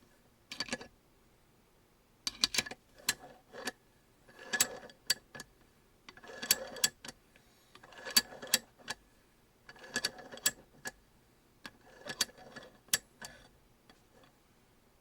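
SUPERTOOL RCW-17 17 mm open-ended ratchet wrench being worked back and forth. Its ratchet gives a group of two or three sharp clicks with a brief scrape about every two seconds, and the clicking stops shortly before the end.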